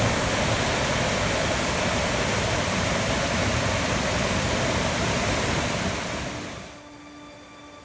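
Waterfall rushing: a steady hiss of falling water that fades out about six and a half seconds in, with faint music starting near the end.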